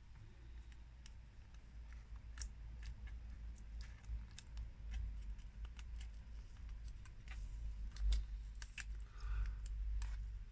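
Small, irregular clicks and taps of fingers and a tool working at a laptop display cable connector, over a low handling rumble.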